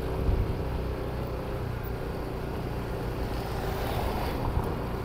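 Steady low engine drone with tyre and road noise from a vehicle driving slowly. About four seconds in, a car passing close by adds a brief rush of tyre noise.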